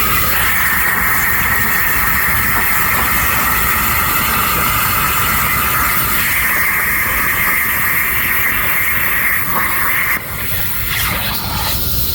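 CNC plasma torch cutting steel plate: a loud, steady hiss with a whining tone in it. About ten seconds in, the sound drops away suddenly, then builds back up near the end.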